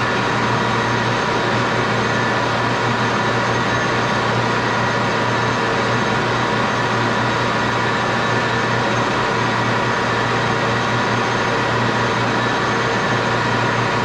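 Metal lathe with a geared headstock running steadily at about 890 RPM: a constant hum with steady whining tones over it.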